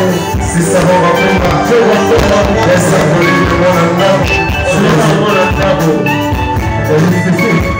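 Congolese dance-band music with drums, played loud.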